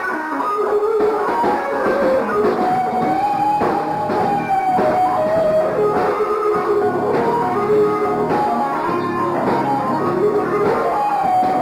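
Live R&B band playing an instrumental passage: an electric guitar lead line with sliding, bent notes over the band's accompaniment.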